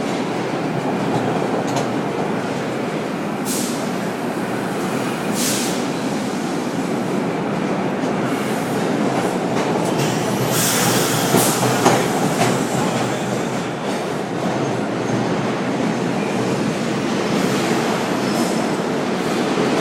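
Vintage R1/R9 New York City subway cars running through a station, wheels clattering over the rail joints with a steady rumble. There are short high-pitched screeches a few times, the longest about ten seconds in.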